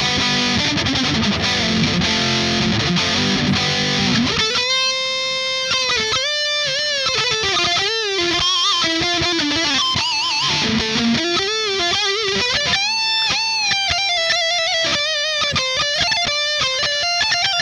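Strandberg Boden NX Classic headless electric guitar played through an amp modeler with a distorted tone. It starts with dense chord playing, then from about four and a half seconds in switches to single-note lead lines with string bends and vibrato.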